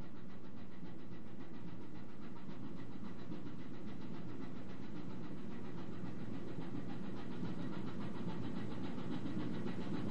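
A ship's engine running with a steady low drone.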